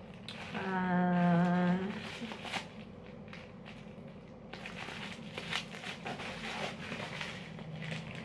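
A woman hums one steady note for about a second. Then, from about four and a half seconds in, plastic bubble wrap rustles and crackles with small clicks as it is pulled off an item from a parcel.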